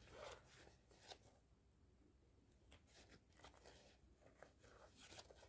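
Near silence, with a few faint, brief rustles and scrapes as thread is pulled through while a leather patch is hand-stitched onto a mesh sneaker.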